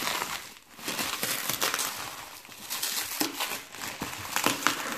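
Plastic bubble wrap crinkling and rustling as gloved hands pull it off a box, with a few sharper crackles near the end.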